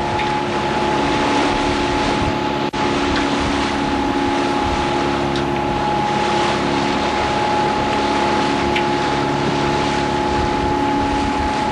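A sailboat's engine running steadily under way, with a constant whine over wind and water rush. The sound drops out for an instant about three seconds in.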